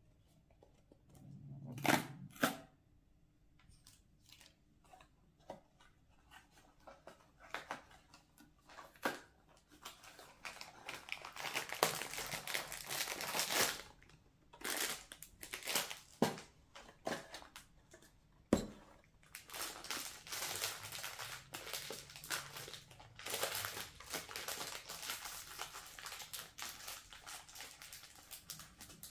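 A cardboard snack box opened by hand with two sharp snaps about two seconds in. Then its plastic inner packet is crinkled and torn open in long crackly spells.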